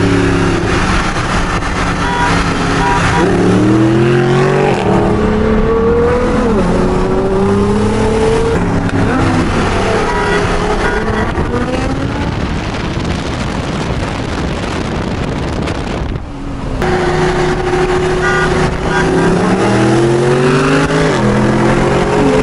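A car engine accelerating through the gears: its note climbs, drops sharply at each shift, and climbs again, with a steadier cruising stretch in the middle and a short lift near three-quarters of the way through.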